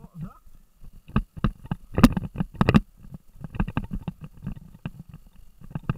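Mountain bike jolting fast over a rough dirt trail: irregular knocks and rattles from the bumps, heard close through the onboard camera, over a low rumble.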